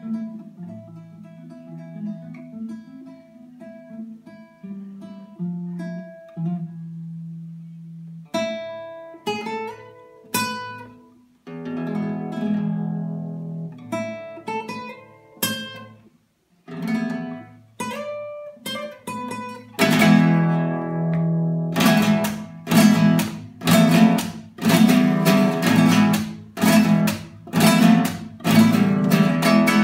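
Classical guitar played solo: soft plucked notes at first, then single struck chords with short pauses, and from about two-thirds of the way in, loud rhythmic strummed chords.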